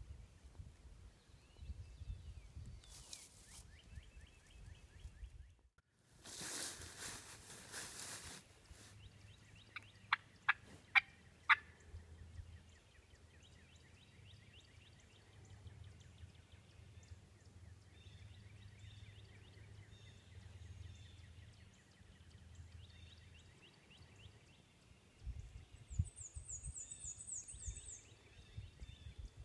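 Wild turkey calling: a rattling gobble of about two seconds, then four sharp yelps in quick succession, with small birds chirping and a high trill near the end.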